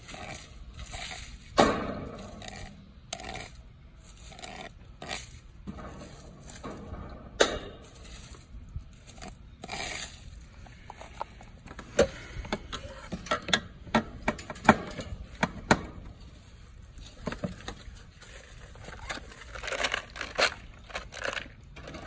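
Irregular metal clicks, taps and scrapes of a screwdriver working on the wiring in an air-conditioner condenser's control box, with a quick run of sharp clicks in the middle.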